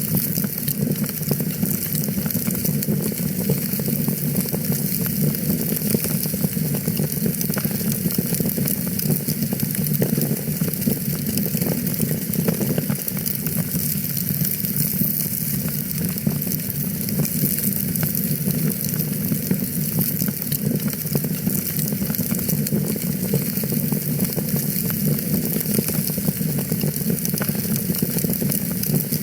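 Wood fire burning in a fireplace, crackling steadily: a dense run of small pops and snaps over a low rumble from the flames.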